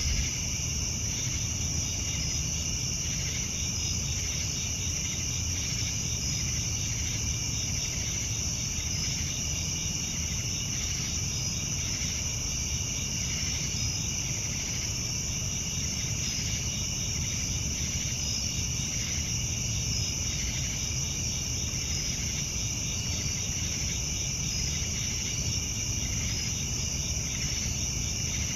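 Insects chirping steadily in a continuous high trill with a faint regular pulsing, over a low steady rumble.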